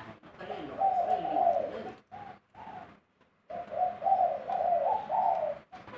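Male spotted dove cooing in a mid-pitched voice: two phrases of repeated coos with a short silent pause between them.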